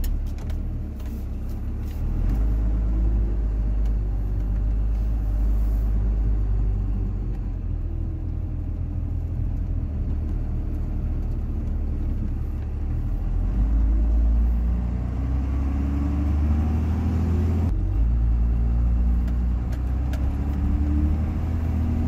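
First-generation Cummins 12-valve diesel pickup heard from inside the cab while driving. A steady low drone grows louder about two seconds in, rises and falls with the throttle, and dips briefly near the end.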